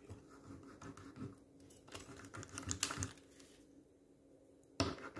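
Small plastic toy parts clicking and scraping against each other as they are handled, with light rustling of a paper leaflet; a sharper click near the end is the loudest sound.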